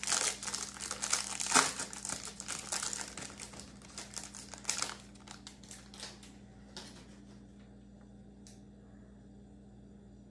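Plastic wrapper of a Panini Prizm football-card hanger pack crinkling as it is torn open and the cards are pulled out: dense crackling for about five seconds, then thinning to a few faint rustles.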